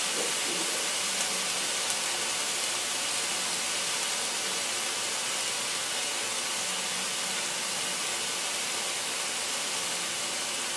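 Chicken breast pieces browning in a cast iron skillet over raised heat: a steady, even sizzle.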